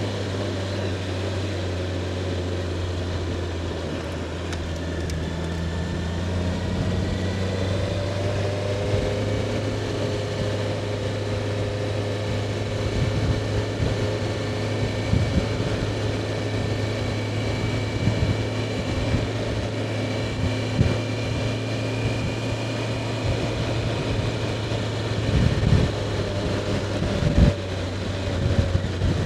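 Honda CBR650R's inline-four engine running steadily, with its pitch shifting a little as it goes. A few sharp thumps near the end.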